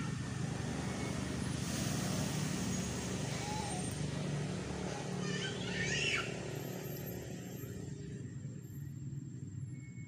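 A motor vehicle's engine running as it passes, a steady low hum that fades away after about eight seconds. About six seconds in comes a short, high, wavering squeak.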